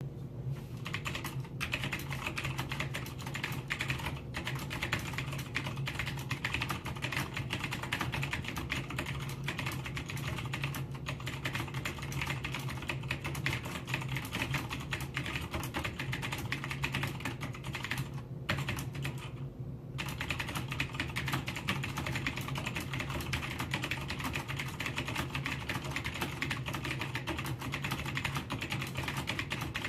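Typing on a Cherry G80-3000 mechanical keyboard with PCB-mounted Cherry MX Blue switches: a fast, steady stream of clicky keystrokes. There are a few short breaks, and a longer pause about 19 seconds in.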